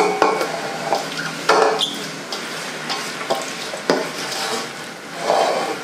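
Wet, chopped leafy greens being pushed by hand from a steel bowl into a steel pressure-cooker pot: a rustling, scraping noise that swells every second or so, with a couple of sharp metal knocks.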